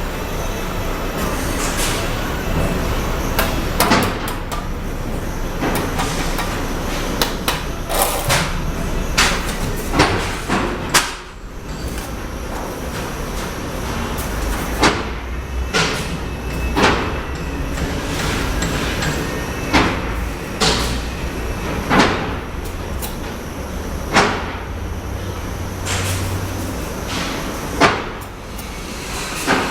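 Masonry tools knocking sharply against cement bricks, roughly once every second or two, over a steady background noise.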